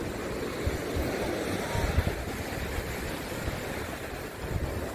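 Surf washing onto a sandy beach, a steady wash of noise, with wind buffeting the microphone in uneven low gusts, strongest about two seconds in.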